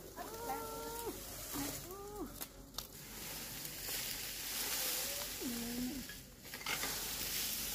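Dry cut grass rustling and scraping as it is raked and gathered, loudest a few seconds in, with a couple of sharp knocks. A few short, held pitched cries sound over it, two near the start and one about two-thirds of the way through.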